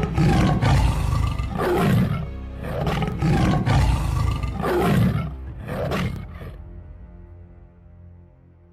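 Recorded tiger roars as a sound effect, a series of loud, rough roars over the first six seconds or so, with background music that fades out near the end.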